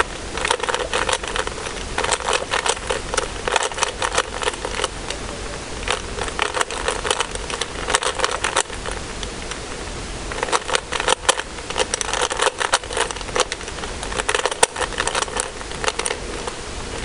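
Rubik's Cube turned rapidly by hand, a dense run of plastic clicks and clacks as its layers snap round, with a couple of brief slower stretches.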